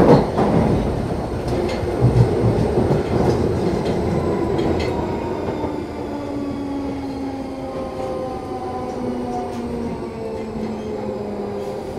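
London Underground 1972 Stock train heard from inside a carriage: running noise dying away while several tones glide slowly down in pitch.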